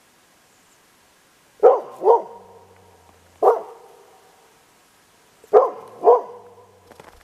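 A dog barking: five short barks in a two, one, two pattern.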